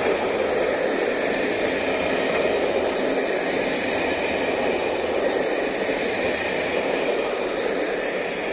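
Passenger coaches of an electrically hauled train rolling past close by: steady wheel-on-rail noise that eases off slightly near the end as the train draws away.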